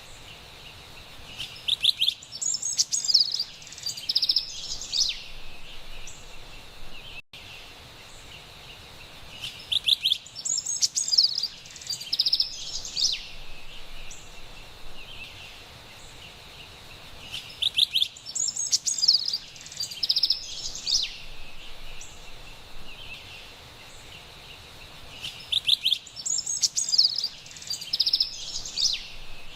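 Carolina wren singing the same rolling song four times, about every eight seconds, over a faint steady background hiss.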